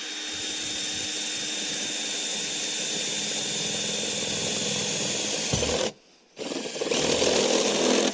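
Power drill with a step drill bit boring a bolt hole through the van's steel body panel, running steadily with a thin whine for nearly six seconds, stopping briefly, then starting again.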